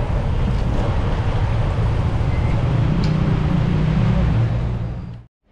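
Steady roar of a gas wok burner with chicken deep-frying in a large wok of oil, sizzling, over a dense background rumble; the sound fades out and cuts off near the end.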